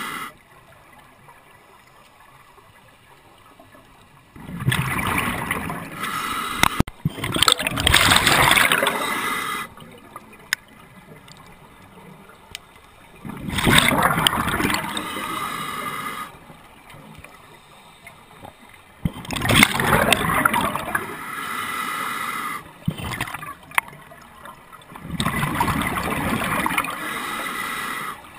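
Scuba regulator breathing heard underwater: a hiss of inhalation and a gurgling rush of exhaled bubbles, in surges roughly every six seconds with quieter pauses between.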